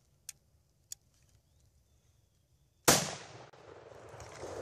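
Two faint clicks, then about three seconds in a single loud rifle shot from a .243 Savage rifle fired at a doe. The report trails off, and a second swell of noise builds near the end.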